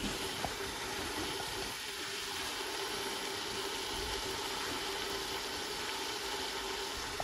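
Carrots, potatoes and peas cooking in an open aluminium pressure cooker, giving off a steady, even hiss, with a faint steady hum underneath.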